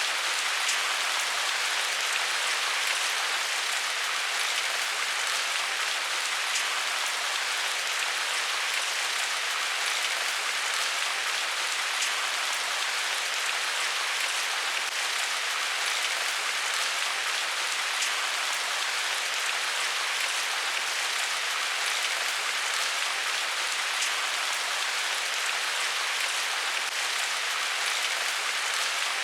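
Steady rain falling on leaves: an even hiss with faint single drop taps scattered through it and no low rumble.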